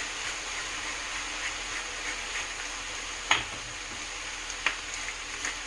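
Corned beef and potatoes sizzling steadily in a frying pan. Two sharp knocks, about a second and a half apart, come a little past the middle.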